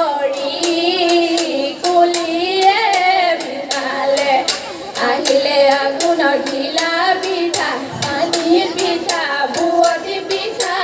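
Women's voices singing a Jeng Bihu song together through a PA, with wavering, ornamented melody lines, over a quick, steady clapped beat of about three claps a second.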